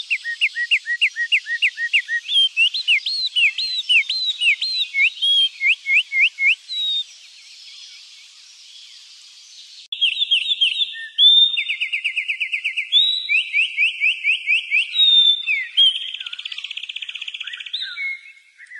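Songbirds singing: rapid series of repeated whistled notes, then a few seconds of quieter background, and about ten seconds in an abrupt change to a different song of fast trills and a buzzing trill.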